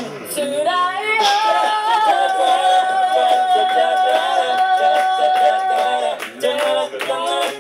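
A cappella group singing with no instruments: the voices slide upward into a long held note of about four seconds, then the rhythmic vocal backing picks up again near the end.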